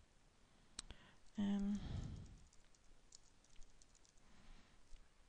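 Computer keyboard typing: faint, scattered key clicks. About one and a half seconds in there is a short hummed voice sound, the loudest thing heard.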